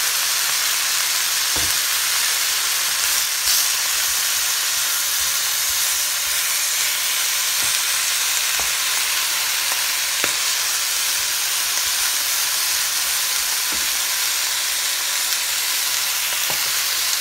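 Chicken drumsticks and chopped onions frying in oil in a pan, a steady sizzle as the chicken browns, with a few light clicks from a wooden spatula against the pan.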